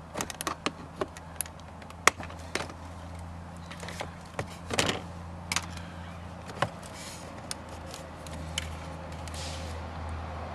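Irregular clicks, taps and short scrapes of hard plastic door-trim pieces being handled and pried, over a steady low hum.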